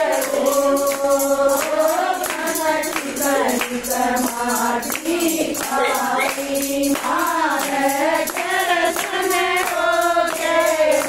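Group of women singing a Haryanvi Krishna bhajan together, with clapping keeping a quick, steady beat of about three to four strokes a second.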